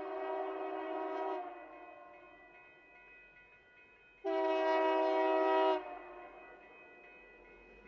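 Union Pacific diesel locomotive's air horn sounding a chord of several notes in two long blasts, a warning for the road crossing. The first blast fades out about a second and a half in. The second, louder one starts about four seconds in and lasts about a second and a half.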